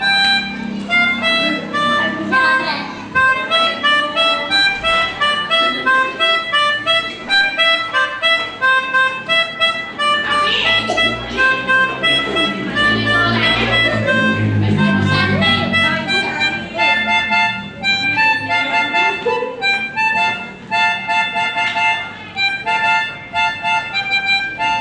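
A child playing the 'telolet' bus-horn tune on a pianika (melodica), a keyboard reed instrument blown through a mouthpiece: a steady run of short, separate notes.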